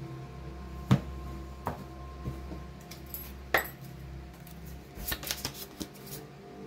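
Tarot cards being handled: a few sharp clicks and taps, the loudest about a second in, then a quick flurry of card flicks about five seconds in, over faint steady background music.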